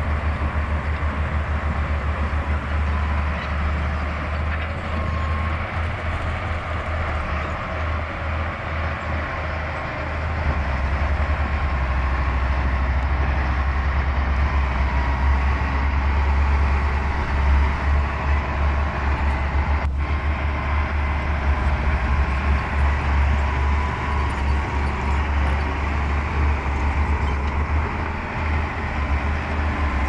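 Komatsu D60P crawler bulldozer's diesel engine running under work, a steady heavy rumble that grows louder about ten seconds in. A single sharp click comes about twenty seconds in.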